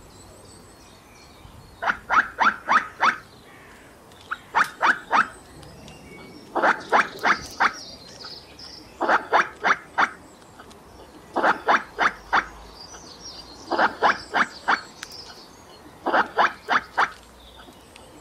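Squirrel calling in repeated bouts of about five short, sharp barks, one bout every two to two and a half seconds, seven bouts in all. Such series of barks are the squirrel's alarm call.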